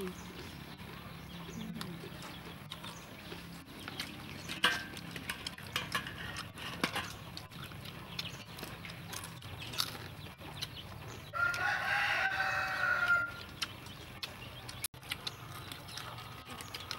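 A rooster crows once, a long call of about two seconds around the middle, with scattered small clicks of spoons and eating.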